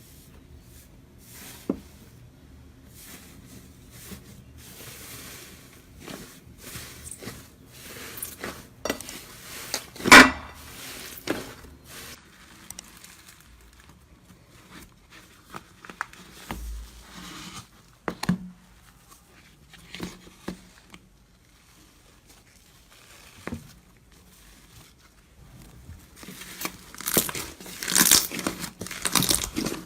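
Crisp crackling and crinkling crunches from a material being squeezed and pressed close to the microphone. They come in scattered bursts, loudest about ten seconds in and crowding together near the end.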